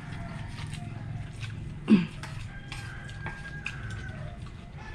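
Spoons and forks clicking against plates during a meal, over a steady low hum. About two seconds in there is one louder short sound that drops in pitch.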